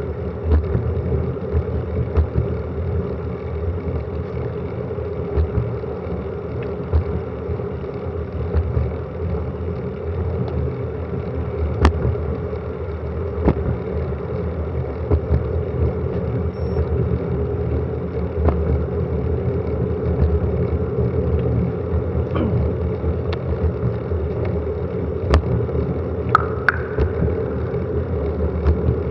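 Wind and road rumble of a fast bicycle descent on an action camera's microphone: a steady low rush with occasional sharp clicks and knocks.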